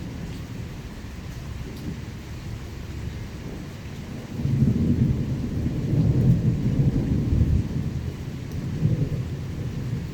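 Thunder rumbling over steady rain, the rumble swelling about four seconds in and rolling for several seconds before easing near the end.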